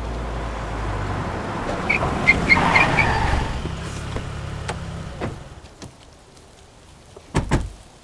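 Car engines running low as the cars pull up, with a few short high squeaks midway, the engine sound dying away about five seconds in. Near the end, two car doors thud shut in quick succession.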